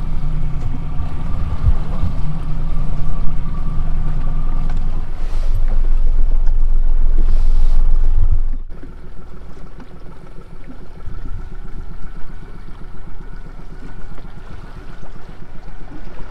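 Motor of a small aluminum skiff running steadily under way, with wind and water. A little past halfway it drops suddenly to a much lower level and runs on more quietly.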